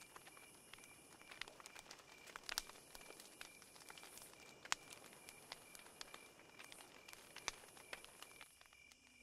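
Near silence: faint outdoor night ambience, with scattered soft clicks and ticks over a faint steady high hiss and tone.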